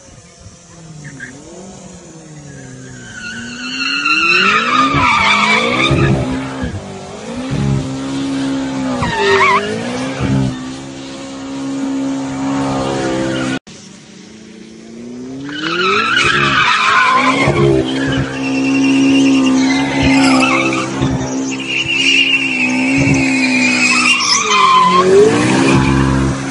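Sports car engine revving up and down hard while its rear tyres squeal and skid through donuts and drifts. The sound cuts off suddenly about halfway through, then picks up again.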